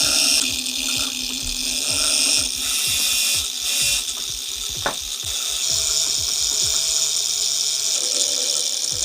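A small power tool running steadily with a high hiss, over background music with a low repeating beat.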